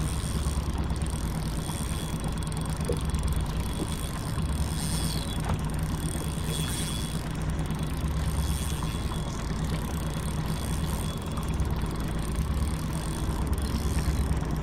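A boat motor running steadily: an even low hum with faint steady high tones over it.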